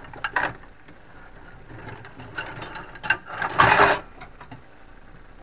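Kitchenware being moved about while searching for a bowl: scattered knocks and clinks, then a louder rattle of about half a second some three and a half seconds in.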